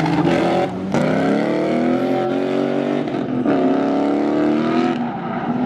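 V8-swapped BMW E36 drift car engine at full throttle, its revs climbing, dropping sharply and climbing again a few times: about a second in, around three and a half seconds in, and near the end.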